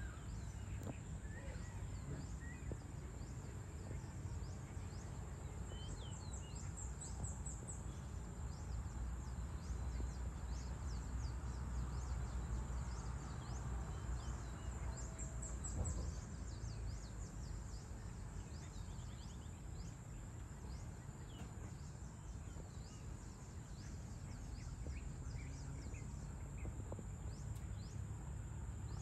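Outdoor evening ambience: many small birds chirping, with two quick rapid series of high calls about six and fifteen seconds in. A steady high buzz and a low, even rumble run underneath.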